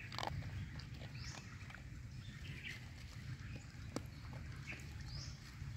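A dog eating dry kibble from a plastic bowl: faint scattered crunches and clicks, the sharpest about four seconds in. Small chirps, likely birds, sound now and then in the background.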